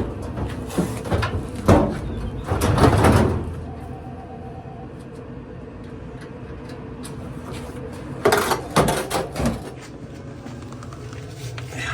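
Metal panels and parts of a Samsung clothes dryer being handled during disassembly: irregular knocks and clatters, with a longer scraping rattle about three seconds in and another run of knocks near the end.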